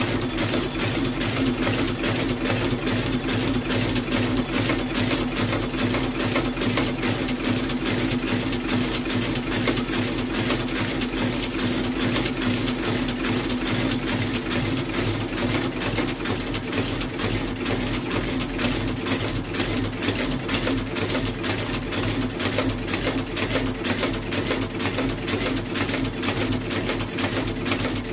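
Outsole stitching machine running steadily, a rapid, even mechanical clatter over a constant motor hum, as it stitches a new leather sole to a shoe's welt.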